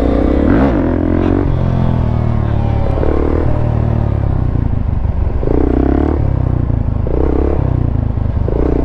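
Dirt bike engine running close by, with a rise and fall in revs in the first second or so and a few short throttle blips in the second half.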